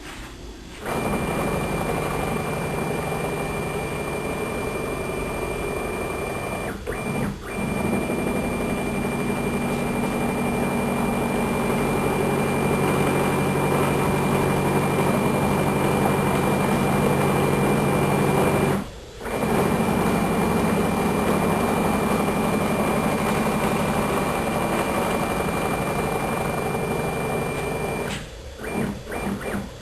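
A CNC machine's Y-axis drive running, a steady mechanical drone with a constant high whine. It pauses briefly twice and stops near the end, giving way to short choppy movements.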